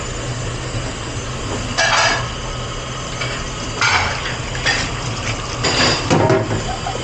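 Commercial dishwashing area: a steady low machine hum under dishes and cutlery clattering and water running. There are louder clatters about two, four and six seconds in.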